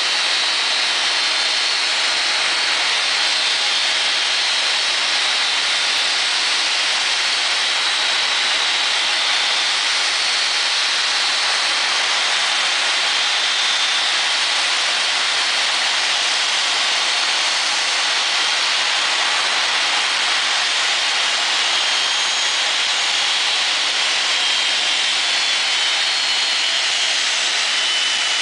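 Boeing 747-200's four turbofan engines running at taxi power: a steady, loud jet roar with a high whine, the whine shifting slightly in pitch near the end as the aircraft swings past.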